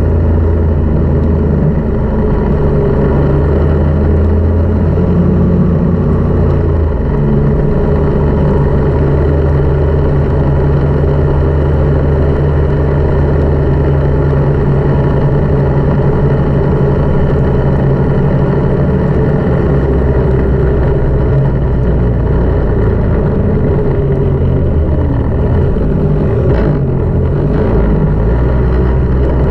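Snowmobile engine running steadily at speed, its pitch shifting about seven seconds in.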